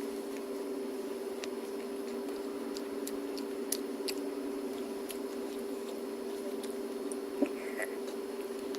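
Close-miked chewing of crispy, burnt cheesesticks: faint scattered crunching clicks over a steady low hum.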